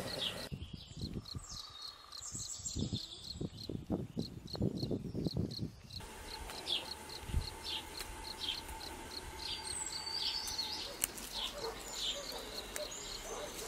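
Outdoor ambience of short high chirps repeating about twice a second. Between about half a second and six seconds in, the chirps give way to soft low knocks and rustles.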